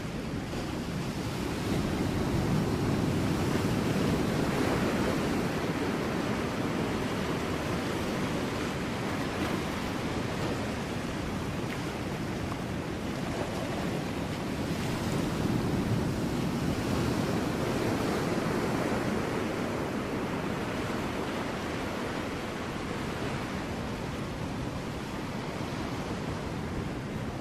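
Ocean waves breaking on rocks: a continuous rush of surf that swells to louder surges a few seconds in and again about halfway through.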